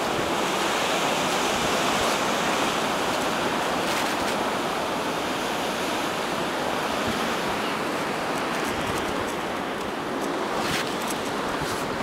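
Blizzard wind blowing steadily, a continuous rushing of wind and blown snow.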